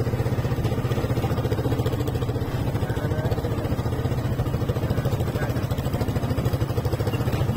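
A motorcycle engine running steadily while riding along a rough dirt road, with a fast, even pulsing.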